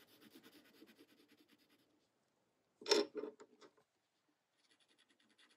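Pencil scratching faintly on a paper tile in quick short strokes as the edges of small drawn shapes are shaded with graphite. About three seconds in there is a short knock followed by a couple of lighter ticks, and then faint scratching starts again.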